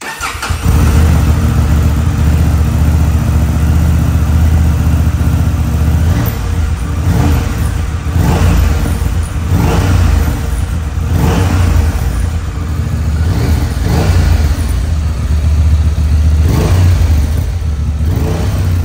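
2023 Honda Transalp 750's parallel-twin engine breathing through an Akrapovic slip-on silencer with its riveted-in baffle, starting up and idling, then blipped through a run of short revs about once a second from about six seconds in. A softer, more subdued sound, inside a closed concrete garage.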